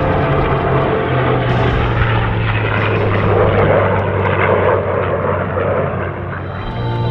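F-16 fighter jet engine noise from the demonstration aircraft, a loud, steady rushing roar that is strongest around the middle and eases slightly near the end.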